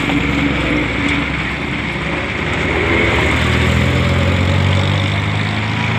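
A heavy vehicle engine running at idle, its low hum swelling for a couple of seconds past the middle, with road traffic going by.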